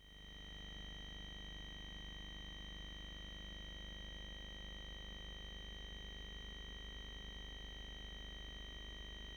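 Steady electrical hum with a high-pitched whine and faint hiss from the nest-box camera's audio pickup; no bird sound.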